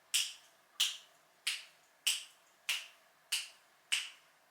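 Finger snaps keeping a steady beat, about one and a half a second, seven in all, setting the tempo for bridge-pose pulses.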